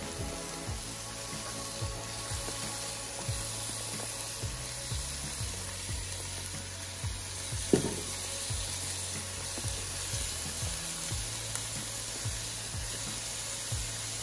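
Soaked red lentils, onion and garlic frying in oil in a steel pot, sizzling steadily as chopped vegetables are tipped in from a plate. One sharp knock about eight seconds in.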